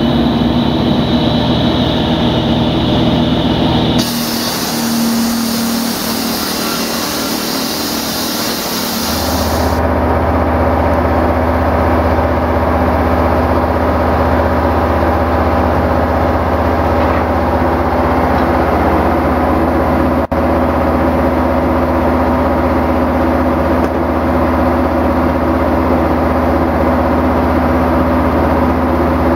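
Heavy concrete-cutting equipment running steadily with a low engine-like hum. The sound changes abruptly twice in the first ten seconds, then holds steady, with a brief dropout about two-thirds of the way through.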